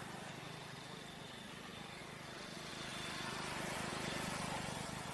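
A road vehicle passing by, its engine and tyre noise swelling louder about three seconds in and fading near the end.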